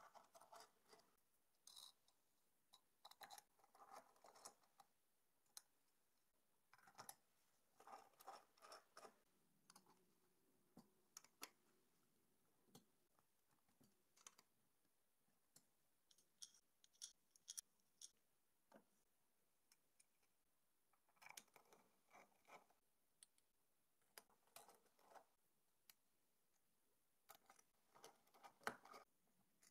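Faint, scattered clicks and rattles of small metal hardware being handled as an Allen key turns bolts into T-nuts, fixing an acrylic plate to aluminium extrusion. A sharper click comes near the end.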